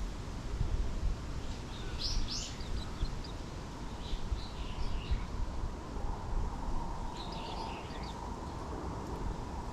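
Small songbirds chirping in three short bouts of quick high notes, over a steady low rumble of outdoor background noise. A faint steady hum comes in about two-thirds of the way through.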